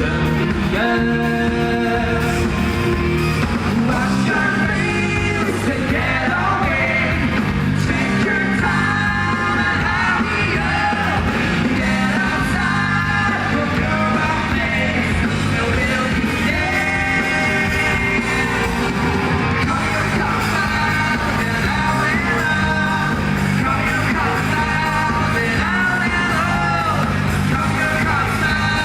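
Live rock band performance, a male lead vocal singing over electric guitars, bass and drums, heard through a concert hall's PA.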